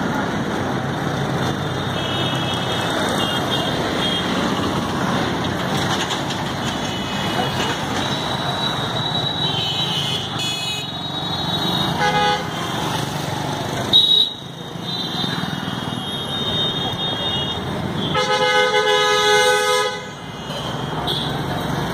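Busy street traffic: a steady mix of engine and road noise from motorcycles and other vehicles, with a brief horn toot about twelve seconds in and a longer horn blast of about two seconds near the end.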